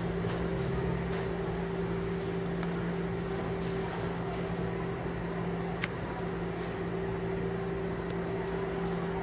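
Steady mechanical hum in a small room, a low drone with a higher steady tone above it, broken by a single sharp click a little before six seconds in.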